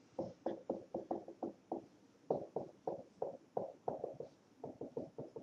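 Dry-erase marker squeaking and tapping on a whiteboard as a heading is written letter by letter, in quick short strokes about four a second, with a brief pause a little before two seconds in.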